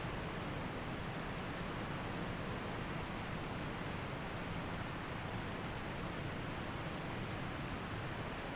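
Waterfall rushing steadily, an even wash of falling water without breaks or changes.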